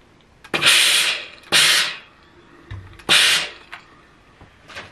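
Steam iron giving three short hissing bursts of steam while a collar seam is pressed open, with a soft knock just before the third.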